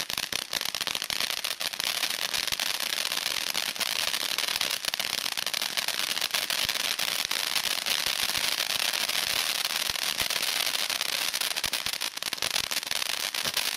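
Sirius fountain battery firing: a steady hiss of sparks thick with crackling pops.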